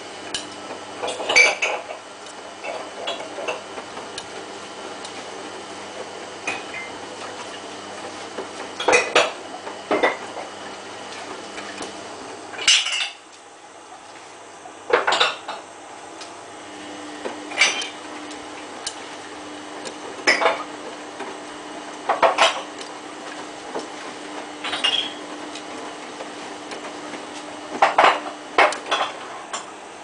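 Samsung WF8804RPA front-loading washing machine in its main wash, the drum tumbling the load with sharp clinks every two to three seconds as hard bits of the clothes strike the stainless drum and door glass. Under them the drive motor hums steadily, drops out briefly about halfway through, then starts again at a different pitch as the drum changes direction.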